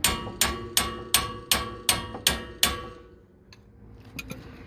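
Hammer striking the steel wheel hub and its seized wheel studs: eight ringing metal blows, about three a second, that stop after two and a half seconds, followed by a few faint clicks.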